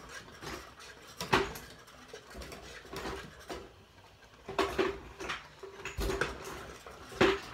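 Kitchen clatter: irregular clinks and knocks of utensils against pots and cookware, about nine in all, some with a short metallic ring.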